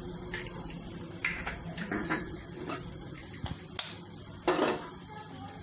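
Eggs being cracked into a nonstick kadai: a series of sharp taps and clinks against the pan, the loudest about four and a half seconds in.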